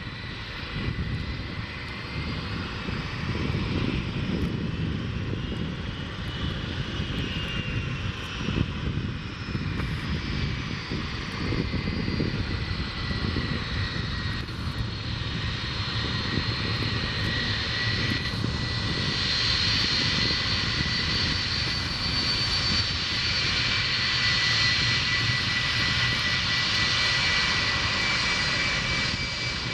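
Boeing 757-200's Rolls-Royce RB211 turbofans running at taxi power: a steady jet rumble with a high whine that drifts slightly in pitch and grows louder in the second half as the aircraft taxis closer.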